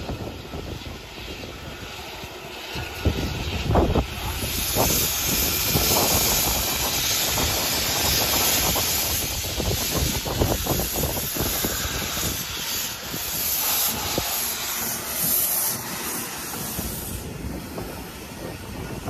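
Steam tram motor moving off and rolling slowly past, hissing steam with irregular low chuffs and knocks from about three seconds in. The hiss stops shortly before the end as the trailer car rolls by.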